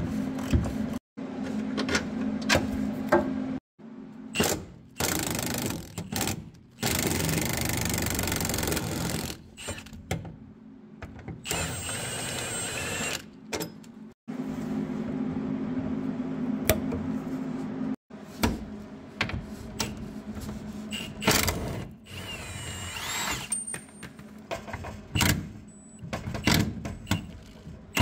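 Socket ratchet clicking and metal suspension parts clinking and scraping as the rear trailing arm of a Honda Integra is unbolted, in short takes joined by abrupt cuts.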